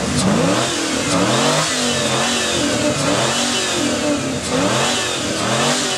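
Chevrolet Corvette C4's V8 with a sport exhaust, revved while standing in repeated quick blips, the pitch rising and falling about once a second.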